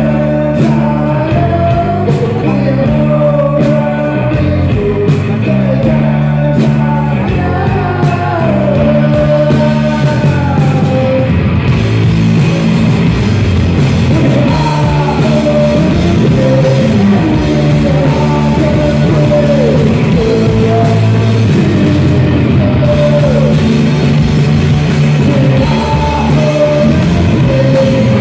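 Live rock band playing loudly: electric guitars and a drum kit, with a singer's voice over them.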